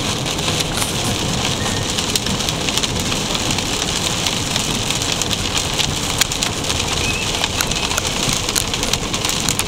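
Heavy rain hitting a car's roof and windshield, heard from inside the cabin: a steady hiss dotted with many sharp ticks of individual drops.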